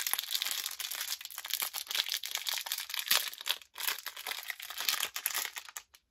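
Small green plastic blind bag being pulled and torn open by hand, a dense run of crinkling crackles that stops abruptly near the end.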